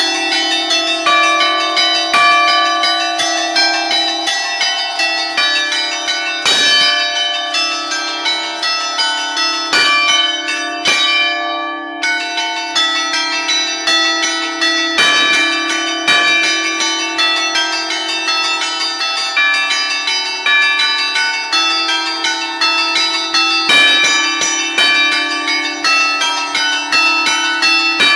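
A five-bell ring in D cast by Barigozzi in 1952, played by hand from a baton keyboard: the clappers strike in quick succession in a festive allegrezza melody, the bells ringing on over one another above a steady hum from the deepest bell. Several heavier strikes stand out along the way.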